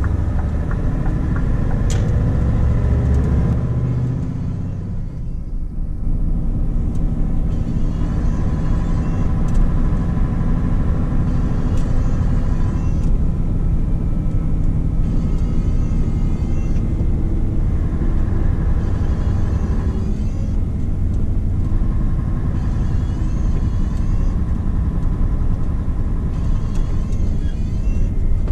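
Scania R520's V8 diesel engine pulling steadily with tyre and road rumble, heard inside the truck's cab while driving on a snowy road. The engine sound dips briefly about five seconds in, then carries on steadily.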